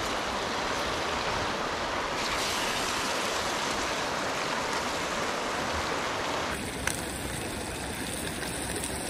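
Steady rush of a shallow creek running over rocks. About two-thirds of the way through, the sizzle of trout frying in butter in a small pan comes to the fore, with a few small pops.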